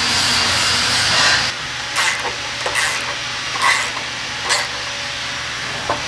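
Skid-plate bolts being snugged up with a hand ratchet on a long socket extension: a steady hiss stops about a second and a half in, then several short ratcheting rasps come about a second apart.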